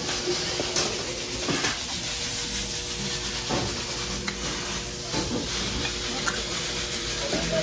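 Steady sizzling hiss from a hot teppanyaki griddle, with a few short scrapes and clinks of the chef's metal spatula on the steel plate.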